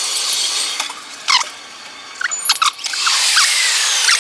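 Ten-times fast-forwarded ambient sound of an elevator ride and a subway station: a steady hiss with short, high, garbled squeaks and chirps, some falling in pitch, and nothing deep. Loudness dips for a moment partway through.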